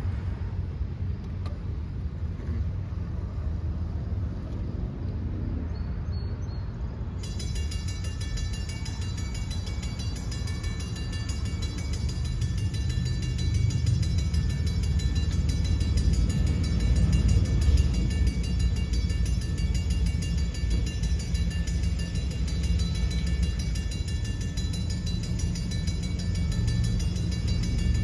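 Safetran railroad crossing bell starting up about seven seconds in and ringing fast and continuously once the crossing signals activate. A steady low rumble lies underneath throughout.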